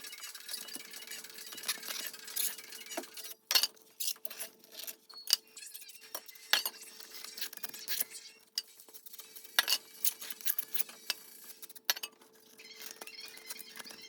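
Irregular metallic clinks and taps of hand tools and small metal parts being handled, typical of work on the engine during intake manifold removal and glow plug replacement, over a faint steady hum.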